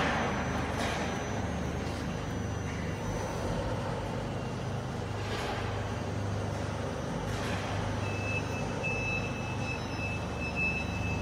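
Quintax 5-axis CNC router running: a steady machine hum with hissing air noise and a couple of brief rushing sweeps. About eight seconds in, a high steady tone joins, stuttering at first and then holding.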